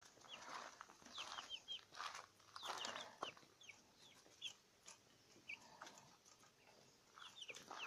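A small flock of hens clucking softly, with many short, high chirps scattered throughout; faint.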